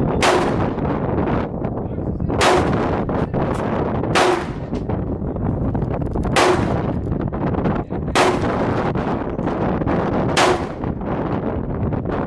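Six loud gunshots at a firing range, fired about two seconds apart at a steady pace, each with a short echo, over a steady low background noise.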